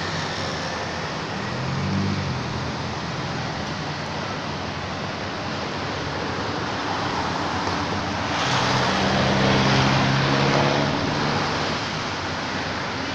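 Road traffic: a steady hiss of passing vehicles, with a motor vehicle's engine passing close by, swelling from about eight seconds in and fading again about three seconds later, the loudest sound here. A fainter engine passes about two seconds in.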